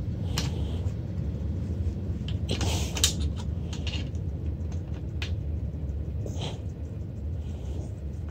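Scattered small metallic clicks and knocks as a hand tool works the saddle clamp of a bicycle seat that will not come off, the loudest knock about three seconds in, over a steady low rumble.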